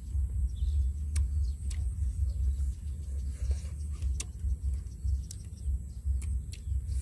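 Sharp clicks of a metal spoon against young mango halves on a steel tray, irregular and spaced a second or so apart, over a steady low rumble.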